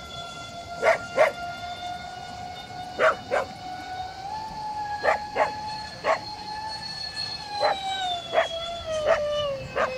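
Twin electric ducted fans of a Freewing SU-35S model jet whining steadily, the pitch rising slightly about four seconds in and sliding down over the last couple of seconds as the throttle changes. Short, loud, sharp sounds cut in over the whine about a dozen times.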